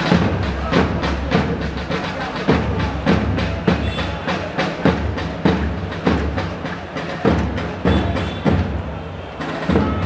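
Drums of a marching crowd of football ultras, beaten in a steady rhythm of about three strikes a second with louder accents.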